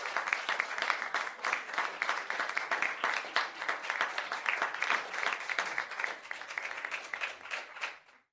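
Audience applause: dense clapping that tapers a little, then cuts off abruptly near the end.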